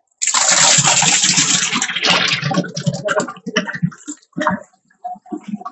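A large pot of thick onion-tomato gravy bubbling and spluttering as it cooks: a dense wet hiss for about two seconds, then irregular pops and plops.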